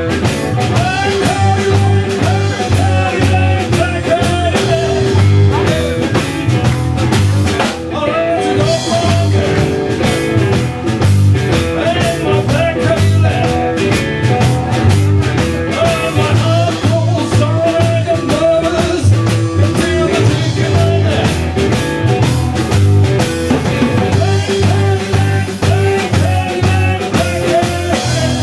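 Texas blues-rock trio playing live: electric guitar with bending melodic lines over bass and drum kit keeping a steady beat.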